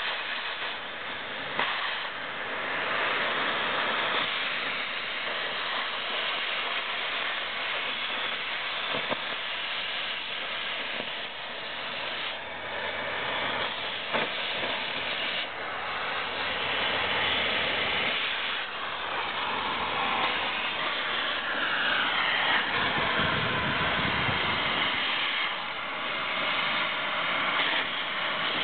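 Oxy-fuel cutting torch hissing steadily as it cuts through rusty steel plate, throwing sparks. A low rumble joins in briefly about two-thirds of the way through.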